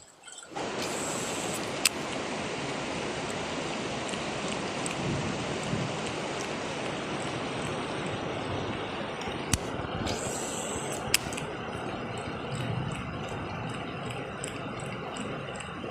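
Steady rush of fast-flowing river water that starts abruptly, with a few sharp clicks over it.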